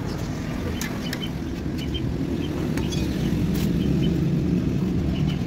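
Steady low motor rumble in the background, with a few faint, short high chirps.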